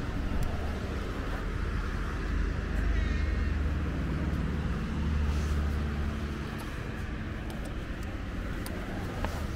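Steady rumble of road traffic, swelling a little twice as vehicles pass. A faint, short high call about three seconds in.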